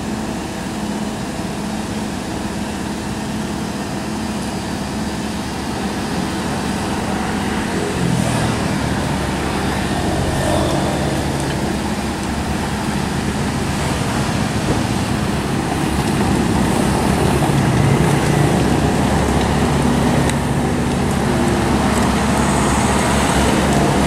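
Komatsu PC75UU mini excavator's diesel engine running steadily, rising in pitch and growing louder about eight seconds in as it works under load, while the bucket scrapes through gravel.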